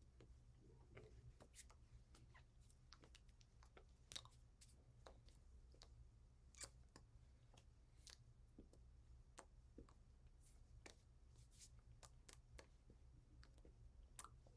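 Near silence: a steady low room hum with scattered faint clicks and soft taps from a person signing, hands touching and lips moving, a couple of them a little louder about four and six and a half seconds in.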